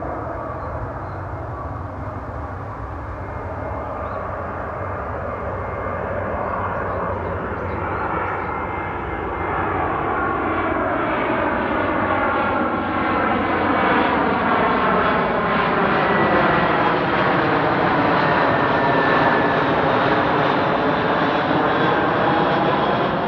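Airbus A320-232 airliner with IAE V2500 jet engines passing by, its engine noise growing steadily louder and peaking over the second half, with a sweeping phasing shimmer as it comes closest.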